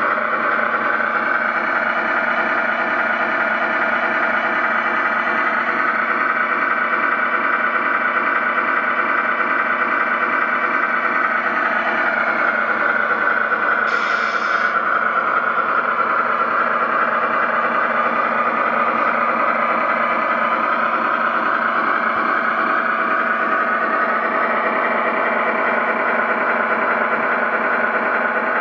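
An engine running steadily at an even speed, with a brief hiss about halfway through.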